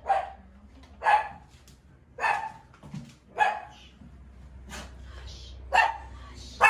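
A dog barking over and over, about one bark a second.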